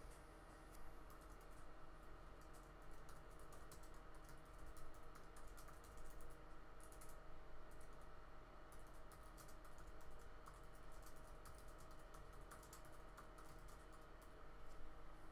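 Faint typing on a computer keyboard, a run of irregular quick key clicks, over a steady low electrical hum.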